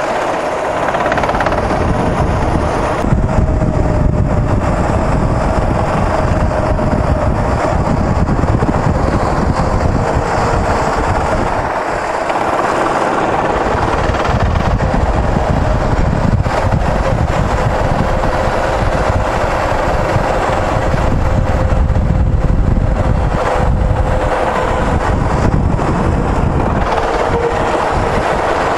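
Go-kart's small petrol engine running at racing speed, heard from the driver's seat, over heavy low rumble from wind and vibration. The engine note dips briefly about twelve seconds in and runs a little lower in the second half.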